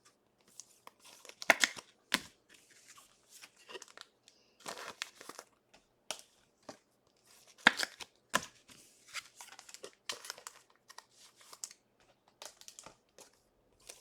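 Trading card packaging being torn open and crinkled in irregular bursts, with a few sharper rips.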